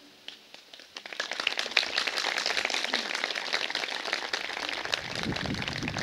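Applause: a crowd clapping, starting about a second in as a dense, even patter, with wind rumbling on the microphone near the end.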